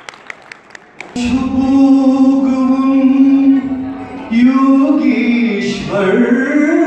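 A man singing into a handheld microphone, holding long notes that slide between pitches, starting about a second in after a few scattered claps.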